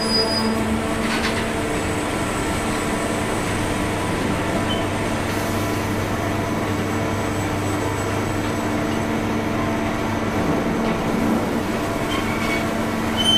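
Automatic forging line running with a steady low mechanical hum, several held tones over a noisy wash, and no hammer or press blows.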